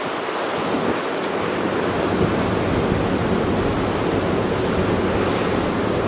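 Ocean surf breaking along a sandy beach, a steady wash of noise, with wind rumbling on the microphone from about a second in.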